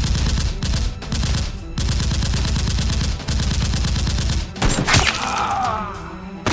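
Rapid automatic gunfire sound effects, in long bursts with two short breaks, ending in a louder crash about five seconds in.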